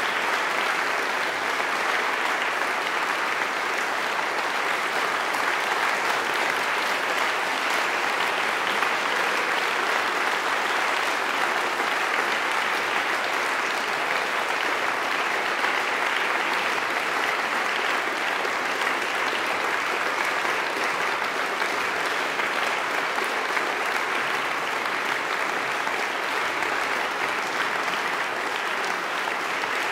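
A large seated audience applauding steadily, dense even clapping with no break.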